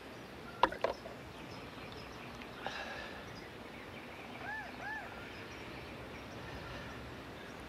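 Steady faint outdoor ambience with two sharp clicks about a second in and, about halfway through, two short chirps that rise and fall in pitch.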